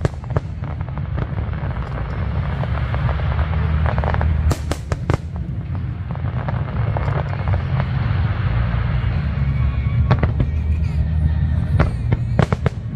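Aerial fireworks going off: clusters of sharp crackling bangs about four and a half seconds in, around ten seconds and again near the end, over a steady low rumble with music.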